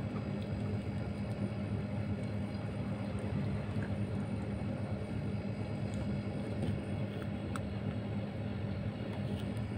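A steady low hum with a few faint ticks.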